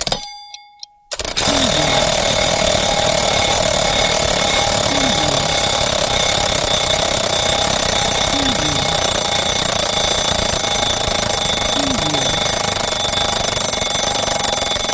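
A clock ticks a few times, then about a second in an alarm clock starts ringing. It is a loud, unbroken, rapid metallic ringing that carries on steadily.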